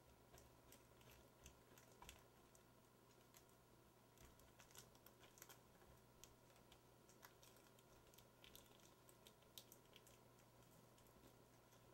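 Near silence over a faint steady hum, with faint, scattered light ticks and rustles of hands pressing tape down along the edge of a CRT's glass face.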